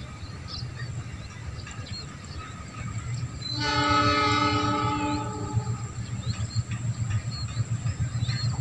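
Horn of an approaching diesel locomotive sounding one long, steady multi-tone blast of about two seconds, starting about three and a half seconds in. A low rumble from the oncoming train grows louder toward the end.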